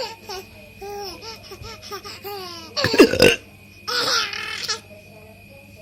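A baby laughing in a run of short, pitched giggles. About three seconds in comes a loud, sudden hiccup from a man, followed by another burst of baby laughter.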